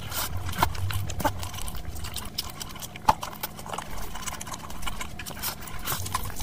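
Close-miked eating sounds: wet, irregular clicking and smacking of chewing and of rice and curry being squished by hand, with one sharper click about three seconds in.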